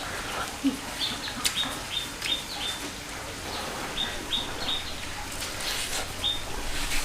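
Birds chirping: runs of short, high, slightly falling chirps, one run about a second in and another around four seconds in, with a few scattered clicks.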